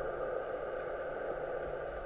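Steady, muffled underwater noise heard through a camera's waterproof housing, with a faint steady hum and no distinct events.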